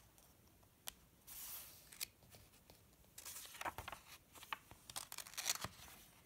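Paper pages of a picture book being handled and turned by hand: faint papery rustles and soft flicks, a couple of isolated ticks early on, then a busier run of rustling in the second half as the page goes over.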